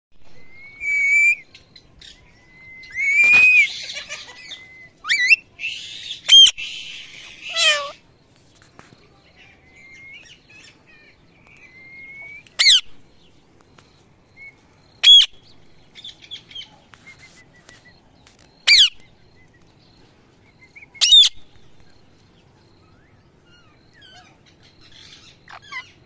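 Indian ringneck parrot calling: a run of whistles and harsh, raspy screeches in the first eight seconds, then single sharp shrieks every two to three seconds, with soft chatter between them.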